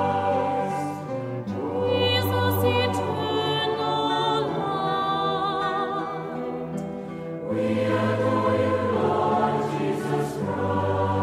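Background choral music: voices hold slow notes over a deep bass. It dips quieter a little past the middle and swells fuller again in the last third.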